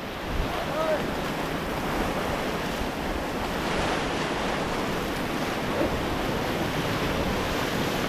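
Rushing river water around a paddled raft, with wind buffeting the microphone: a steady, unbroken wash of noise.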